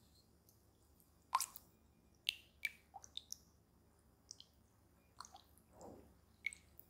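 Spatula stirring yeast into milk in a glass bowl: soft liquid swishes and scattered light clicks of the spatula against the glass.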